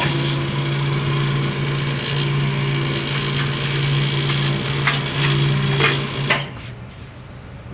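Hand-held power drill running steadily for about six seconds with a few sharp clicks near the end, then stopping.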